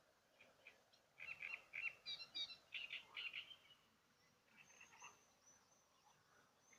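Small songbirds chirping faintly: a quick flurry of short high chirps in the first half, then a thin, very high note repeated several times a second toward the end.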